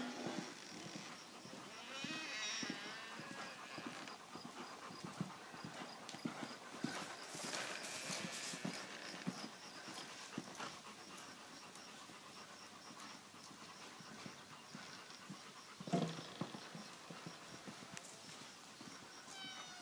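Appaloosa mare cantering under a rider on sandy ground: soft, uneven hoofbeats with the horse's rhythmic breathing, and one louder thump near the end.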